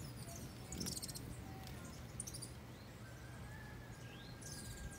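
High, thin chips and squeaky twitters of hummingbirds at a feeder, in a few short bursts about a second in, about two seconds in and near the end. A faint, thin steady tone runs through the second half.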